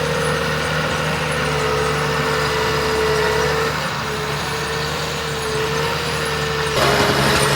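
Heavy diesel machine engine running steadily, with a steady high whine over it. The sound changes abruptly to a louder, noisier engine near the end.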